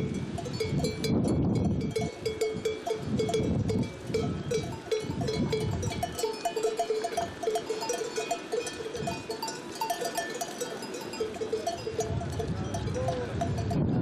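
Many bells worn by a flock of sheep clanking in a steady, irregular jangle as the flock walks.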